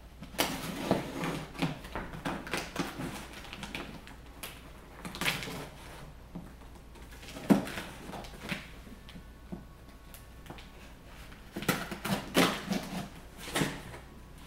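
A knife blade slicing through packing tape on a cardboard box, in several runs of short scratchy strokes with a sharp tick about halfway, then the cardboard flaps being pulled open near the end.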